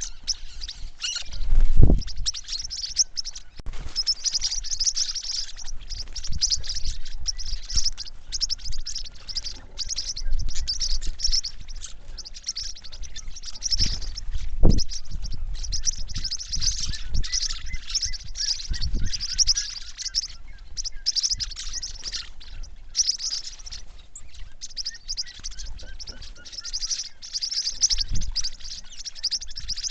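Many small birds chirping and twittering continuously in high-pitched calls, with a few dull low thumps, the loudest about two seconds in.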